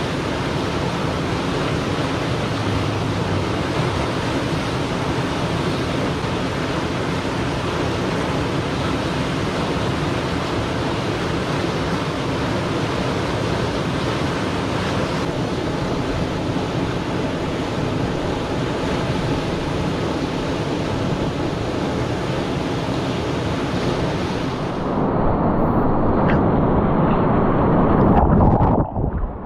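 Whitewater rushing steadily over a river play wave, a loud even wash of moving water. About 25 seconds in the sound turns louder and duller, with the highs cut off, as it is heard from a camera on a kayak in the breaking wave, water splashing over it.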